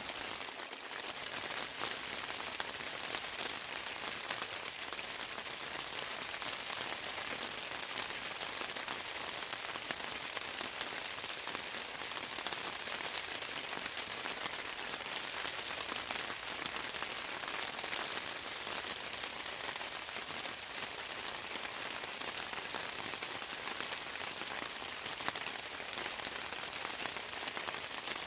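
Steady rain falling: an even hiss of countless small drops.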